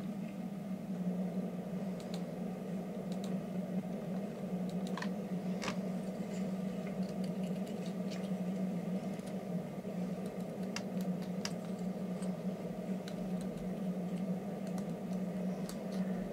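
Scattered small clicks and scrapes of hands working on a homemade wooden fork, over a steady low hum.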